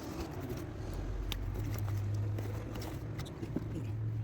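Mercedes-Benz Actros 1848 truck's diesel engine running steadily at idle, a low even hum, with a single light click about a second in.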